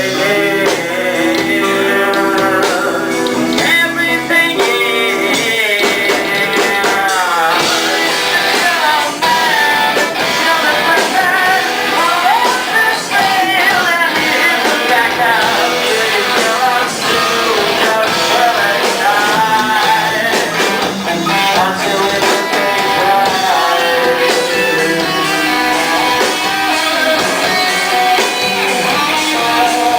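Rock music: a band playing, led by guitar, with a singing voice.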